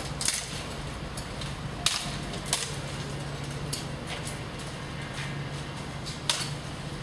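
A handful of sharp, irregularly spaced snaps from hand-pruning an avocado tree: cuts and cracking twigs among the branches, over a steady low hum.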